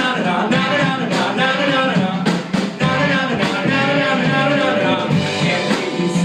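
A rock band playing a song with drums, guitar and a lead singer.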